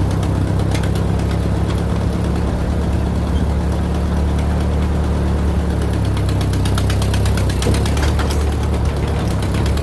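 Engine running steadily at idle, a low hum with a fast, even ticking over it.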